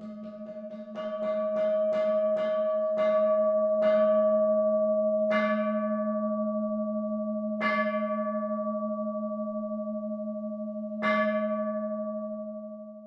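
A metal bell struck about a dozen times: the strikes come quickly at first and then further and further apart. Each strike adds to a sustained, wavering ring that dies away at the very end.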